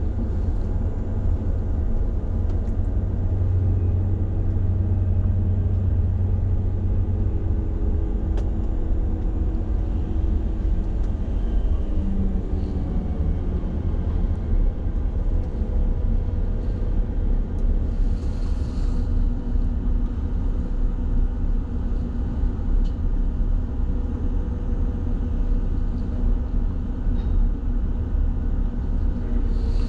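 Liebherr mobile crane's diesel engine running steadily under load, heard from inside the operator's cab as a low rumble and hum, its pitch shifting slightly about twelve seconds in.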